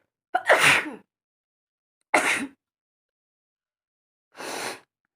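A woman sneezing three times in a row, about two seconds apart. The first sneeze is the loudest and the third is noticeably softer.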